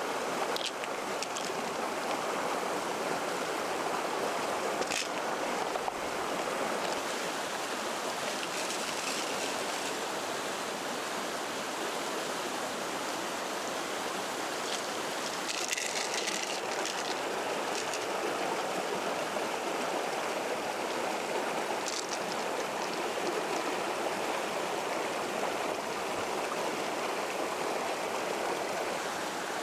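Steady running water, with a few faint clicks.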